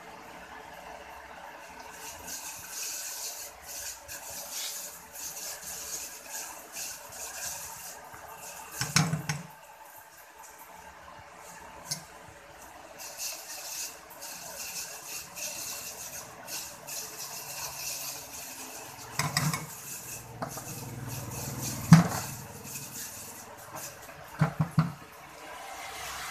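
Handheld plastic vegetable corer twisted into a pointed gourd (parwal), scraping out the seeds and flesh in long rasping spells. A few sharp knocks come in between, the loudest in the later part.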